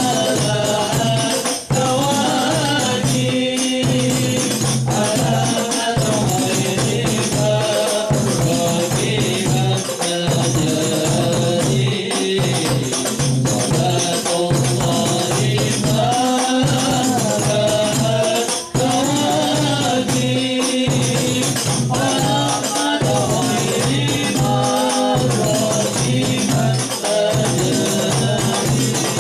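Hadroh ensemble: men singing a sholawat together, lined out by a lead voice, over a steady rhythm of hand-struck frame drums (rebana) and a large bass drum.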